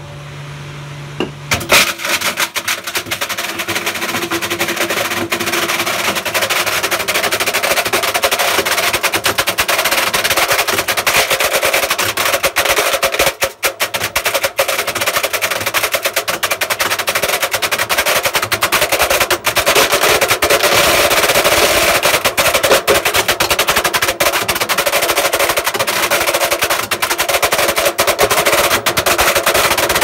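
A 5 kg stainless steel slug battering around inside the spinning drum of a Beko WM85135 front-loading washing machine: a rapid, continuous metallic hammering, like a drum roll, that starts about two seconds in after a brief hum and never lets up. The slug is smashing into the drum's paddles.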